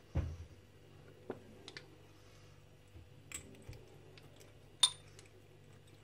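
A few scattered clicks and light knocks as a copper-wire-wrapped steel padlock is handled and lifted off a plastic board. The loudest are a low knock right at the start and a sharp metallic click near the end.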